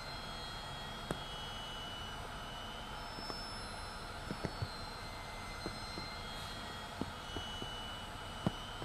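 Steady rushing, hissing drone from an electronic soundtrack, with sparse sharp taps scattered through it, sometimes two or three close together.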